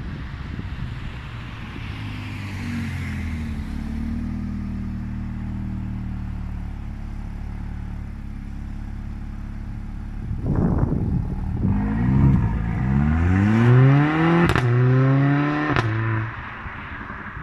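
Mercedes-AMG CLA 45's turbocharged four-cylinder through its performance exhaust, idling steadily, then launched hard about ten seconds in: the revs climb in rising sweeps through first and second gear, with two sharp cracks near the end, before the sound falls away as the car pulls off.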